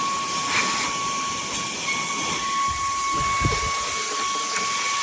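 Wkzay cordless handheld vacuum running on high power: a steady high motor whine over the hiss of air rushing through the nozzle as it sucks up dust. A brief low bump about three and a half seconds in.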